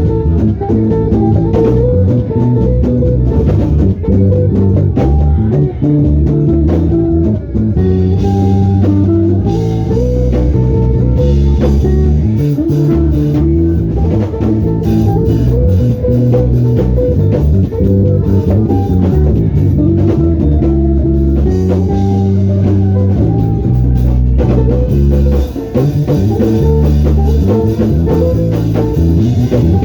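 Instrumental band music, no singing: a busy bass guitar line carrying strong low notes, with guitar and a drum kit, steady and loud throughout.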